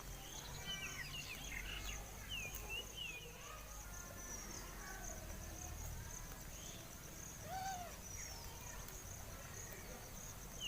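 Rural ambience: a steady, high pulsing chirr of insects with birds giving short, quick chirps, a little low rumble underneath. One louder arched call stands out about seven and a half seconds in.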